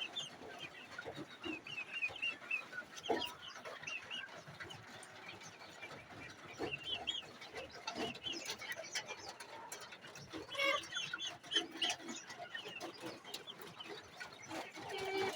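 A flock of Sasso chickens calling: many short, high chirps and clucks overlapping, with scattered light clicks.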